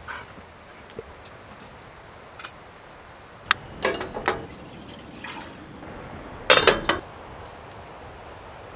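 A sharp click, then a short run of crackling bursts, as a lighter lights a burner on a two-burner propane camp stove. A louder short burst of noise follows about two-thirds of the way through.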